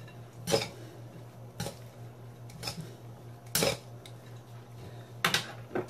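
Metal salad tongs clinking against a glass bowl while tossing a noodle salad: about five short knocks spaced roughly a second apart, over a faint steady low hum.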